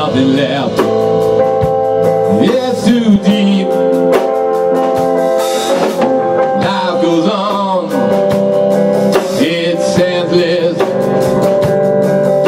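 A live band playing a song with two electric guitars and a drum kit, and a man singing lead vocals.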